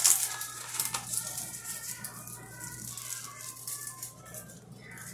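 Plastic-gloved hands rustling rose petals and crinkling a disposable aluminium foil pan as petals are plucked off their stems, with sharp crinkles at the start and again about a second in, then softer rustling.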